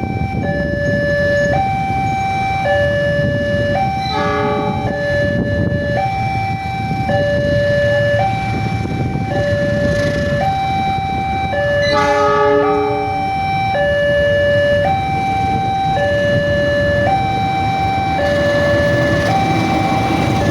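Railway level-crossing warning siren sounding a two-tone hi-lo alarm, switching pitch about once a second. Two short horn blasts cut in, about 4 and 12 seconds in, and near the end the rumble of an approaching train grows under the alarm.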